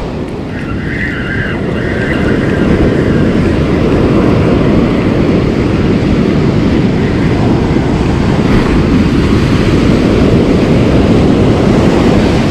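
Surf breaking and washing up a sand beach: a steady, low, loud roar.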